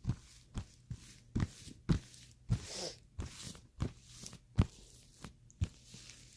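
Fluffy slime being kneaded and squeezed by hand, giving a string of short, sharp squishes and pops about twice a second, with a longer wet crackle near the middle.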